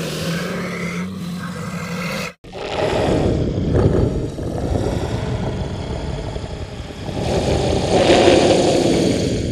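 Monster sound effects: a steady droning growl cuts off suddenly about two seconds in, then a long rough creature roar swells twice.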